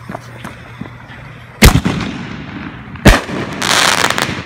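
A 1.25-inch canister firework shell fired from a mortar tube. A loud launch bang comes about a second and a half in, and a loud burst follows about a second and a half later. About half a second after that comes a dense spell of crackling lasting under a second.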